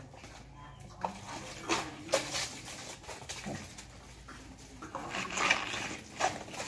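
Wild boars grunting in short irregular bursts, in one cluster about a second in and another around five seconds in.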